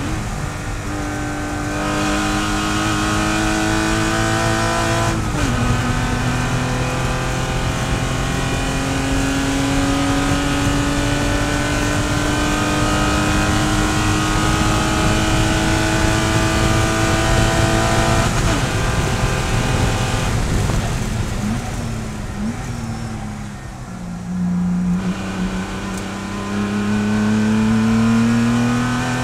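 Porsche Boxster race car's flat-six engine heard from inside the cockpit, pulling under full throttle in fifth gear with steadily rising revs, with a brief lift about five seconds in. About eighteen seconds in it comes off the throttle and brakes, with revs falling and jumping through downshifts, then accelerates again in fourth gear near the end.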